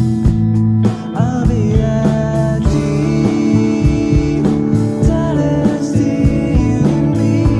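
Background song: a singing voice over instruments with a steady beat, the voice coming in about a second in.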